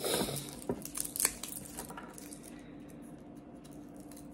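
A few light clicks and knocks of kitchen utensils being handled, the sharpest in the first second and a half, over a low steady hum.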